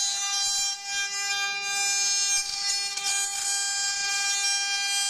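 Multi-spindle 4th-axis rotary CNC router running a carving job: the spindles whine with a steady high tone, over a fluctuating hiss from the bits cutting.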